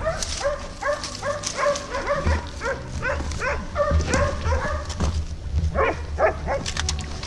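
Hunting dog giving rapid, high yelping barks, about three a second, for around five seconds, then a few more barks near the end.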